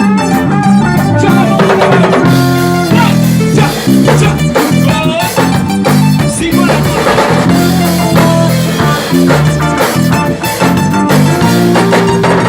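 A live band playing with drum kit and electric guitar: a gospel song rehearsed as an instrumental passage, loud and continuous with a steady beat.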